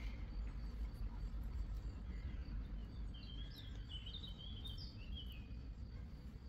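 Outdoor ambience: a small bird gives a quick run of warbling chirps about halfway through, over a steady high insect trill and a low background rumble.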